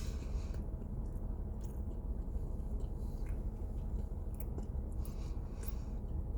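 Close-up chewing of a soft pumpkin spice cinnamon roll, with scattered wet mouth clicks and smacks. A steady low hum runs underneath.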